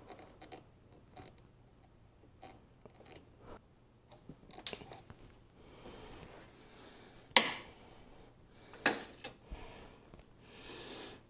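Faint clicks and scrapes of a socket extension turning a power steering pump's mounting bolt out by hand, with two sharper clicks about seven and a half and nine seconds in, and soft breathing-like hiss.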